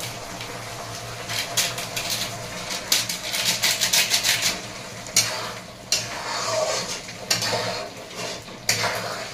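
Metal spoon clinking and scraping against a metal kadai as spice masala is stirred into frying paste: a fast run of clicks that thins out about halfway through and picks up again.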